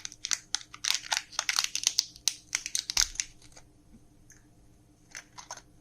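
Candy wrappers being crinkled and torn open: quick sharp crackles and rustles for about three seconds, a quiet pause, then a few more crackles near the end.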